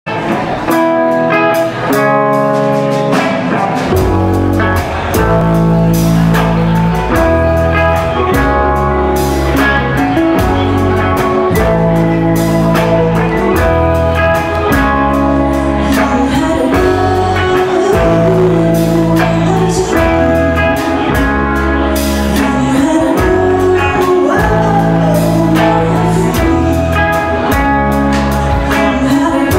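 Live rock band playing with keyboard, bass guitar, drums, violin and electric guitar, and a woman singing lead. The bass and drums come in about four seconds in.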